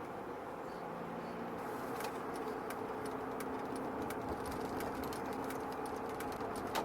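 Car driving on a snow- and ice-covered street, heard from inside the cabin: a steady engine and road hum. From about two seconds in, a run of quick crackling clicks from the tyres over packed snow and ice.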